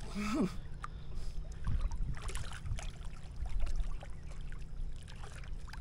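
Shallow seawater sloshing and splashing around the legs of people wading and scrubbing the sandy bottom with their feet, over a steady low rumble; a brief vocal sound near the start.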